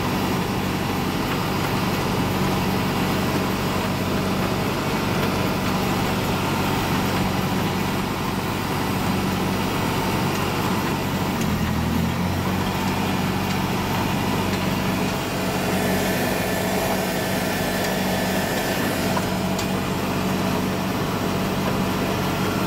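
John Deere tractor's diesel engine running steadily, heard from inside the cab as a constant low drone, with one brief deeper swell about twelve seconds in.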